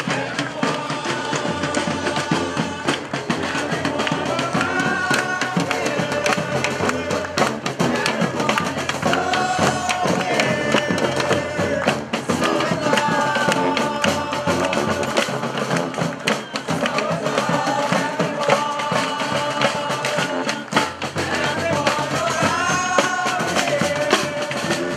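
Marching street brass band playing: horns carry a melody that repeats about every eight seconds, over drums and hand percussion.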